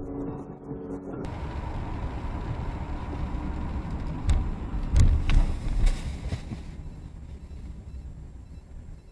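Dashcam audio of a truck-and-car collision: steady road noise, then a cluster of heavy thuds and sharp bangs around the middle as the vehicles hit, fading back to road noise.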